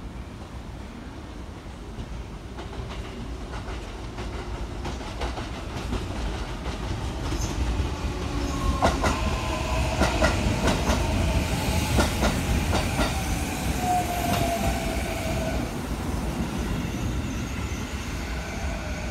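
Sanyo 6000 series electric train pulling in and slowing. Its Mitsubishi IGBT-VVVF inverter whines in several tones that fall in pitch as it brakes. About halfway through, the wheels clack over rail joints.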